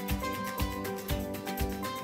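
Background music with a steady beat, about two beats a second, under held melodic notes.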